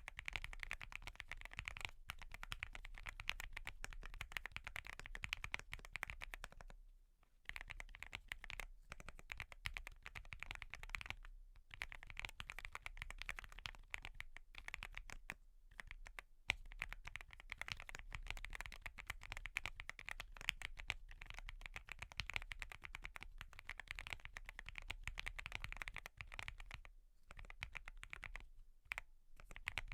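Fast, continuous typing on a fully foamed Wobkey Crush80 mechanical keyboard with Gateron Milky Yellow Pro linear switches, the keystrokes running together in a dense clatter. A handful of brief pauses break the typing.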